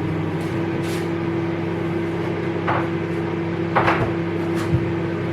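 Privilege microwave oven running on its 450 W setting with a steady hum. A few light clicks and rustles come about three and four seconds in.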